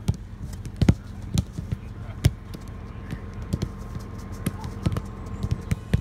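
Footballs being kicked back and forth on an artificial pitch: a dozen or so sharp thuds of boot on ball at irregular intervals, the loudest about a second in, over a steady low rumble.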